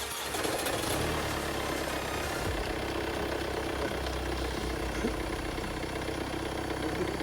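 The Mercedes CLA's engine running steadily at idle after it comes in about a moment in, now starting and running after its crash-damaged starter-motor loom and blown pyro fuse were replaced.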